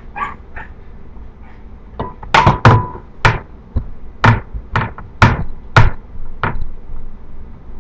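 A run of about ten sharp knocks and thuds, irregularly spaced, as pizza dough is pressed out by hand in a greased metal pizza pan on a kitchen counter. One early knock carries a brief metallic ring.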